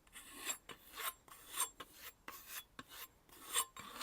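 Knife blade being stropped by hand on a soft leather strop: a rhythm of short rasping rub strokes, about two a second. This is the final light stropping that removes the root of the burr.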